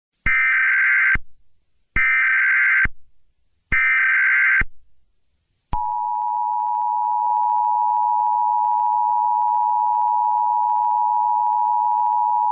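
Emergency Alert System tones: three short bursts of the screeching SAME digital header, about a second apart, then a little before halfway the steady two-tone EAS attention signal starts and holds.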